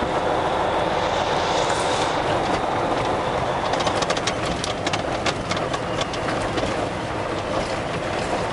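Kenworth semi truck heard from inside the cab while driving: steady engine and road rumble. From about three and a half seconds in, rapid clicks and rattles join it as the truck rolls over the gravel road.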